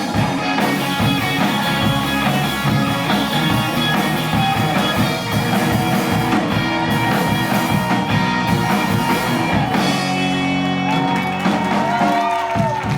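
Live rock band playing electric guitars and a drum kit. About ten seconds in, the steady beat gives way to held, ringing chords.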